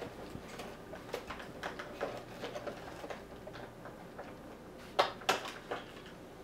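Irregular small clicks and taps of a plastic toy and its packaging being handled and worked free, with two sharper clicks about five seconds in.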